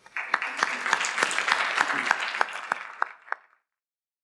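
Audience applauding, a dense patter of many hands clapping that dies down and cuts off about three and a half seconds in.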